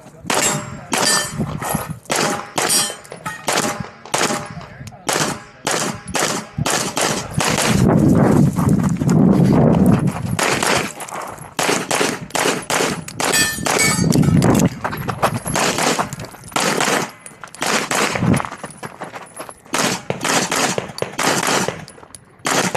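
Rapid pistol fire from a red-dot-sighted Carry Optics competition handgun: dozens of shots in quick strings, with brief pauses between positions.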